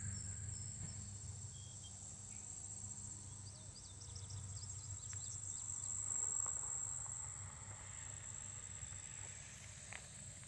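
Steady high-pitched drone of a late-summer insect chorus, crickets or katydids, over a low steady rumble, with a run of faint short high chirps about halfway through.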